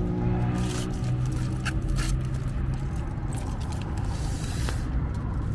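Motorcycle engine idling steadily, with aluminium foil wrapped around its hot exhaust pipe crinkling and rustling as it is peeled back. There are a few sharp crackles.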